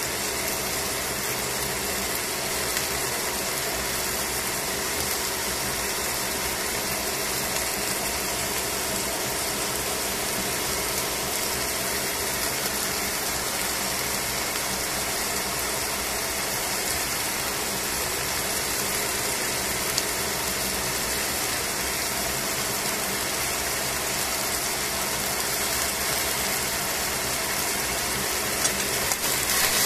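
Chicken thigh sizzling in a stainless steel frying pan, a steady sizzle from the bubbling fat and juices around the meat. It grows louder just before the end.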